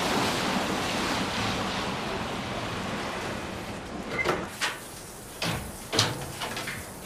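An even rushing noise fades over the first few seconds. Then come a handful of sharp clicks and knocks: a key working in a door lock and the door being opened.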